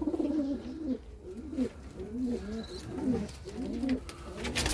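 Pigeons cooing, a run of short rising-and-falling low coos repeating throughout.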